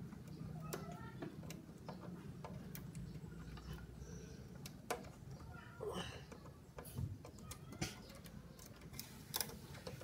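Irregular small clicks and taps of a screwdriver on the terminal screws of circuit breakers in a panel board, as the wire connections are tightened down, over a faint low hum.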